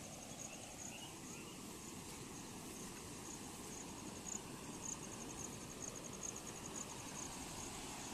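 An insect chirping in a steady series of short, high pulses, over a low, even rush of water flowing across a flooded crossing.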